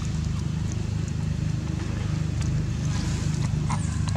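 A steady low motor drone that holds an even pitch and level throughout, with a few faint clicks over it.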